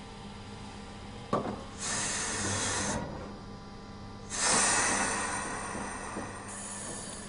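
Compressed air hissing from a valve on the air-brake piping in the cab of a DB Class 140 (E 40) electric locomotive. A click about a second in, then two bursts of hiss, the second longer and fading away, over a steady electrical hum.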